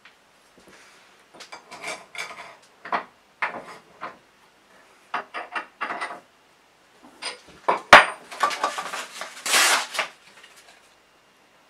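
Steel knife blank being set into a cast-iron bench vise and clamped: a string of metallic clinks, knocks and rattles, with the sharpest knock about eight seconds in and a short scraping rasp just after it.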